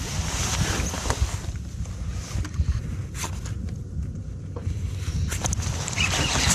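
Wind buffeting the microphone, with a steady low rumble, a hiss above it and a few scattered sharp knocks.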